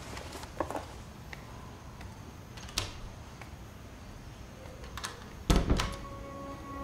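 A few light clicks and knocks in a quiet room, then a heavy thump about five and a half seconds in, followed by a second, softer knock. Soft, held music notes come in just after.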